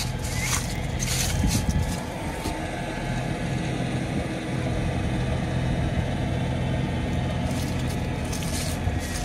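A steady engine hum, with short rushes of noise near the start and again near the end.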